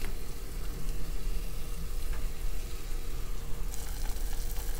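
Seasoned broth with chicken mince and daikon chunks bubbling and sizzling in a pot on the heat, a steady crackling simmer. A faint click at the start, and the crackle gets brighter near the end.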